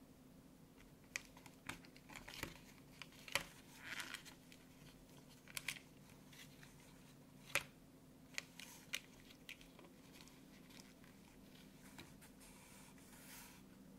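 Clear plastic clamshell tray clicking and crinkling under the fingers as memory-foam ear tips are pulled out of it and set down. There is a scatter of sharp clicks and taps, the loudest about three and a half and seven and a half seconds in, and a soft rustle near the end.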